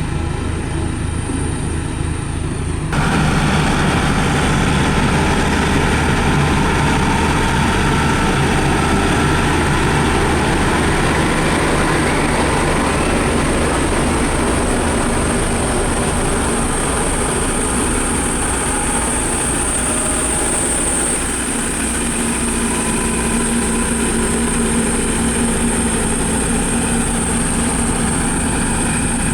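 Diesel engine of heavy road-building machinery running steadily under load, with a steady high-pitched whine above it. The sound jumps louder and changes character abruptly about three seconds in.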